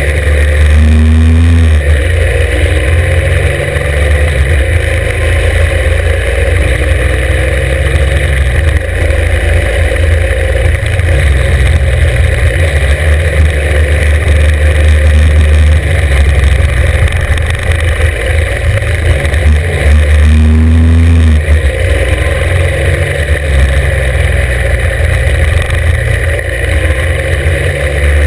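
Norton 750 Commando's parallel-twin engine pulling hard under load, heard from on the bike. The revs climb again about a second in and about twenty seconds in.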